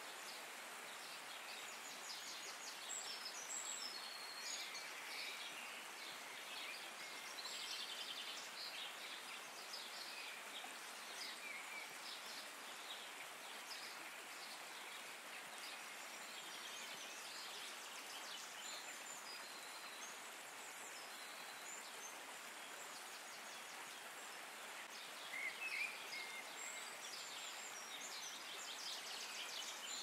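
Nature ambience: a steady hiss of water with small birds chirping and trilling throughout, one call standing out louder near the end.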